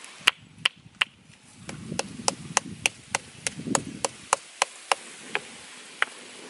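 A thin strip of bamboo being cut by hand with a blade: a run of sharp, crisp cutting clicks, about three a second, with light handling rustle underneath.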